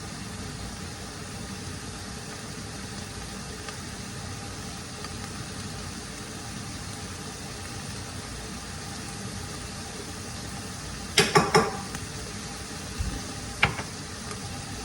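Steady hiss of food cooking on the heat, with a quick run of three or four sharp knocks about eleven seconds in and one more a couple of seconds later.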